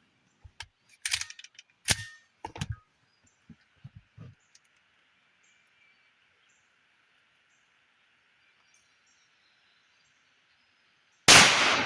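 A few sharp clicks and knocks in the first seconds, then near the end a single loud shot from a 5.7×28mm PSA 5.7 Rock pistol, its report dying away slowly in an echo.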